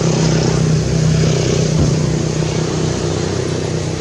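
A motor vehicle engine running steadily, a constant low drone.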